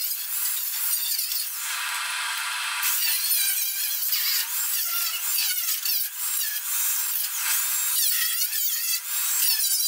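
Power tools cutting and grinding steel automotive sheet metal, such as a cut-off wheel or grinder working through rusted body panels and spot welds. The tool's pitch rises and falls over and over as it bites into the metal and lets off.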